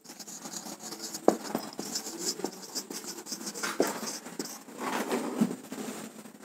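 Marker pen writing on a whiteboard: a run of short, scratchy strokes with a few sharper taps where the tip meets the board.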